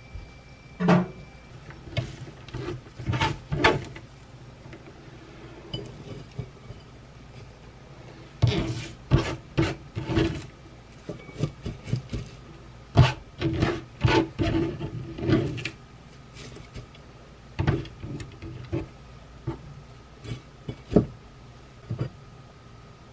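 Hands handling cut mizuna greens and arranging them on a ceramic plate on a wooden table: irregular clusters of rustles, rubbing and light knocks.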